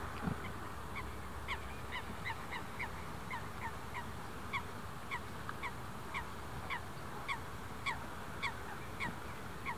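A bird calling over and over, a short falling note about twice a second, over a steady low background noise.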